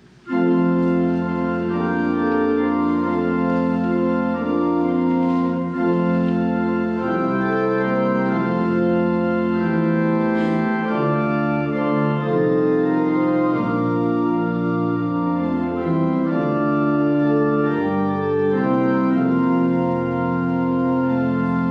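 Church organ playing sustained chords in a slow progression, starting abruptly just after the spoken prayer ends; it cues the congregation's sung praise.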